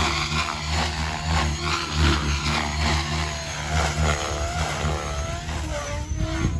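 Radio-controlled 3D helicopter in flight: its rotor sets up a steady low hum, with whines that rise and fall in pitch as it manoeuvres.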